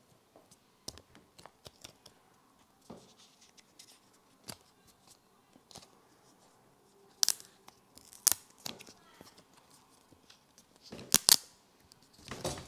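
Thin protective plastic film being peeled off an AirPods Pro charging case: a run of small crackles and clicks, with sharper snaps about seven and eight seconds in and a louder crinkling burst near the end.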